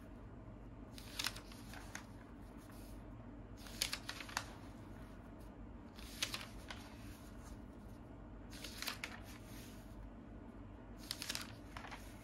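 Pages of a paper comic magazine being turned by hand: a short, faint papery rustle about five times, every two to three seconds.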